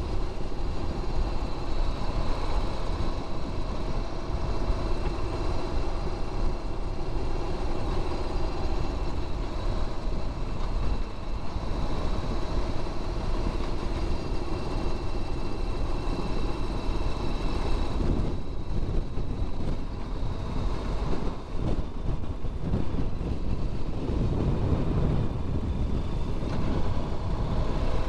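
Honda VFR1200X's V4 engine running under way, heard with wind and road noise at the helmet, the engine note drifting gently up and down. About two-thirds of the way through, the engine tone fades and uneven wind noise takes over.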